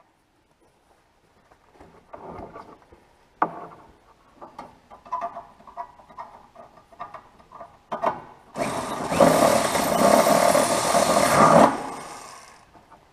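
Scattered knocks and clicks of handling against a sheet-metal stove box, then a power drill boring a rivet hole through the sheet metal: about three seconds of loud whirring grind that winds down near the end.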